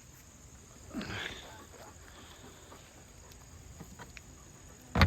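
Steady high-pitched insect buzz with a short chicken call about a second in, then a sharp knock near the end.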